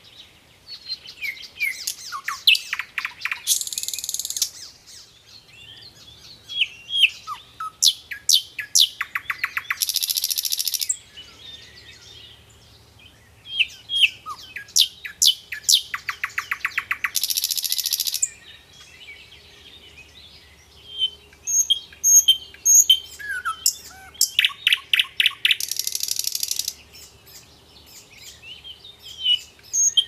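Nightingale singing a run of loud, varied phrases: whistled slurs, clicks, fast rattling trills of repeated notes and buzzy high runs. Each phrase lasts a few seconds, with short pauses between.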